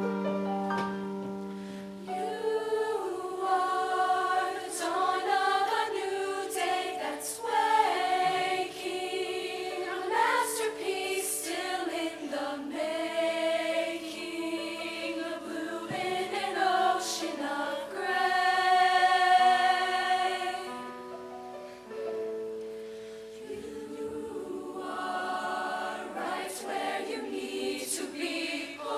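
A choir singing in several parts, with crisp consonants cutting through.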